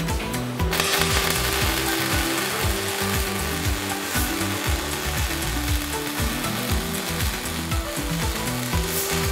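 Welding arc from a robot-held MIG torch, striking suddenly about a second in and then crackling and sizzling steadily, under background music with a beat.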